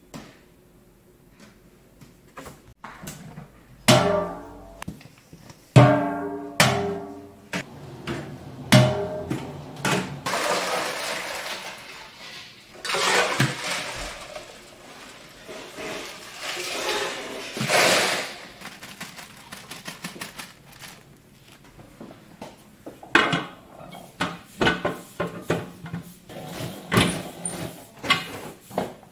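Stainless-steel pots and a bowl knocking and clanking, the first strikes ringing out like metal. In the middle there are several seconds of water rushing and sloshing in a steel pot, and near the end a quick run of sharp clatters.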